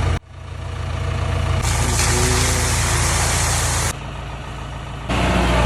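Heavy bulldozer engine running with a steady low rumble, in short spliced-together segments that cut in and out abruptly. A loud hiss sits over the engine for about two seconds in the middle.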